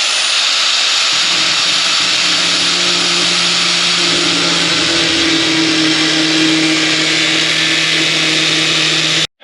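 Handheld power tool running steadily at high speed as it cuts an opening through a motorcycle saddlebag; it stops abruptly near the end.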